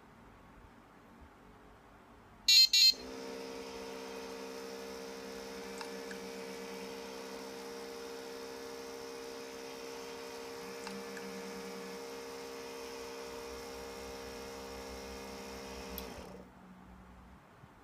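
Two short, loud, high beeps, then a small electric motor, presumably the one driving the garage door, runs with a steady hum for about thirteen seconds and stops.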